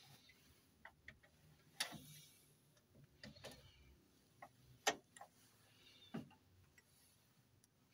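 Faint, irregular clicks and knocks of an airliner's throttle-quadrant levers being handled, with a few louder clunks about two, five and six seconds in, the loudest near five seconds.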